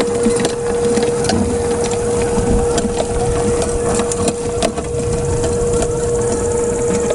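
Tamiya CC-01 RC truck's 55-turn brushed electric motor and gear train whining at one steady pitch as it drives, over a low rumble with scattered clicks and crackles from the tyres and chassis on rough ground.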